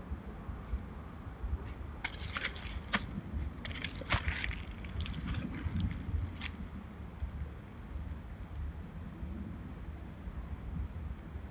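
Dry leaf litter and twigs crackling and crunching in a run of short, irregular snaps from about two seconds in until past the middle, as a roe deer buck lies down on the forest floor. A steady low background noise sits under it.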